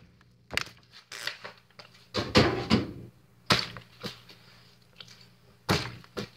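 A plastic water bottle knocking and thudding on hard surfaces as it is flipped, landed and handled, several separate impacts with quiet gaps between them. The loudest come about two to three and a half seconds in, and another near the end.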